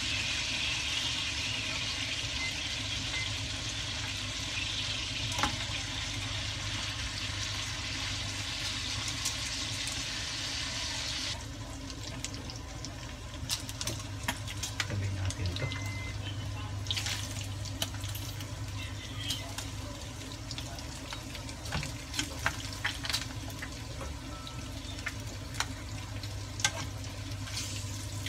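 Pork steaks frying in oil in a nonstick pan: a dense sizzle that drops away sharply about eleven seconds in, leaving scattered crackles and pops of the oil. A low steady hum runs underneath.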